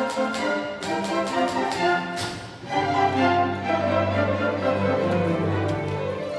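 Orchestral music with strings, accompanied by the rapid, regular clicking of typewriter keys played as a percussion instrument. The clicks drop out after about two seconds, leaving sustained orchestral chords over a low bass line.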